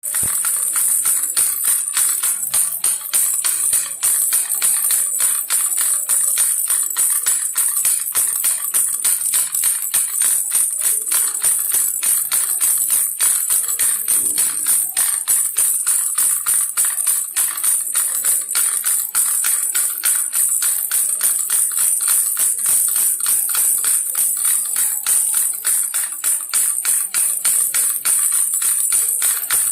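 Toy pig baby rattle shaken steadily in a quick, even rhythm: a continuous bright jingling rattle.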